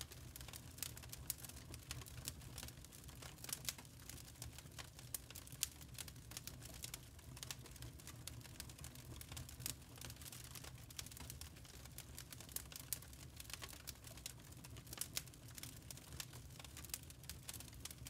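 Lump charcoal burning, with many small irregular crackles and pops over a low steady rumble.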